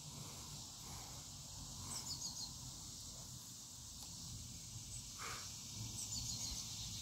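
Outdoor background: a steady high insect drone, with a bird calling a short run of quick falling notes twice, about two seconds in and again around six seconds.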